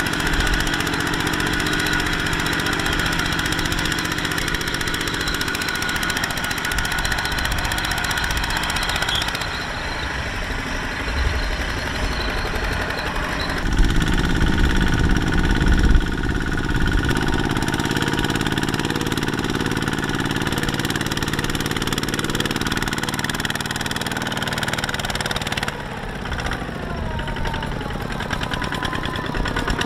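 Single-cylinder diesel engine of a two-wheel walking tractor running under load as it pulls a trailer of rice sacks through deep mud, getting louder for a couple of seconds about halfway through, with the pitch wavering near the end.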